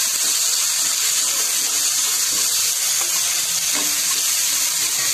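Peas, carrots, paneer, potato and peanuts sizzling in hot oil in a kadhai as they are mixed: a steady frying hiss with a few light knocks.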